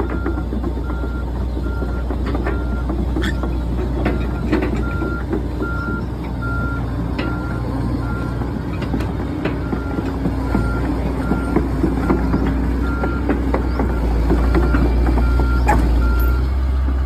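A single-pitched electronic beep repeating evenly, about one and a half times a second, over a steady low engine-like rumble with scattered knocks; the beeping stops near the end.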